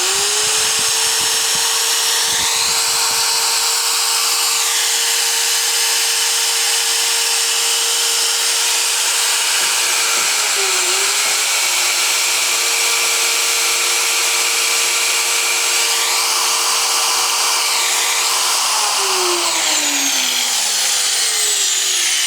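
A freshly repaired and regreased Dniepromash MShU 125-1200 angle grinder, a 1200 W model, started with no disc fitted. It spins up at once and runs steadily at full speed for about eighteen seconds, then is switched off and winds down with a falling whine. It runs evenly, which the owner calls working excellently after the repair.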